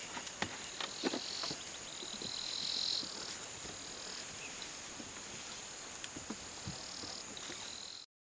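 Forest chorus of insects and frogs: steady high-pitched buzzing with trills that come and go, the loudest swelling about three seconds in, and a few scattered sharp clicks. The sound cuts off suddenly near the end.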